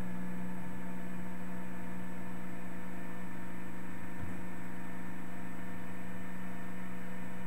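Steady electrical hum, a low drone with fainter higher tones, holding at one level throughout.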